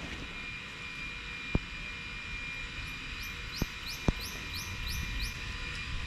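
Outdoor campsite sound: a steady low rumble with a few sharp knocks, likely from tent gear being handled. About three seconds in, a bird gives a quick run of about six rising chirps.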